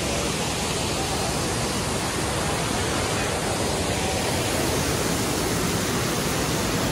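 Steady rushing of an artificial waterfall pouring over rockwork: an even, unbroken hiss of falling water.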